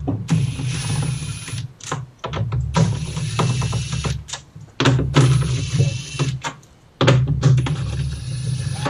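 Cordless power driver backing out 10mm screws, running in four bursts of about one and a half to two seconds each with short pauses between.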